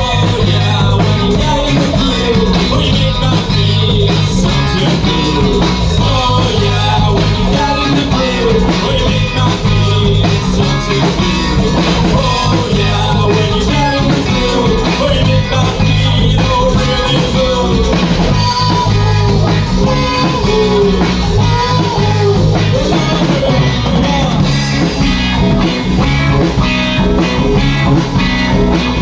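Rock music with guitar, drum kit and singing.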